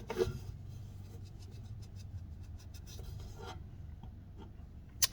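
Handling noise from a pocket knife being turned over in the fingers: faint scratchy rubbing and small ticks, with a click just after the start and a sharper click near the end, over a low steady hum.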